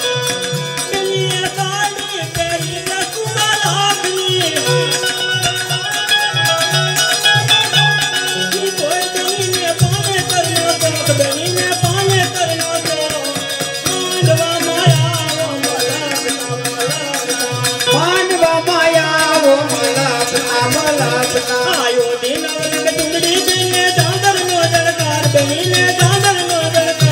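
Traditional folk music played live: a melody wavering up and down over a steady, repeating low beat.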